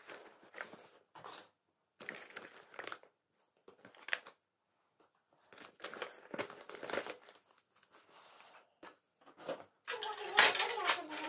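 Rustling and crinkling of a leather handbag's fabric lining and plastic packaging as items are pushed in by hand, in short irregular spells. Near the end, louder jangling of metal bangles against a tin box.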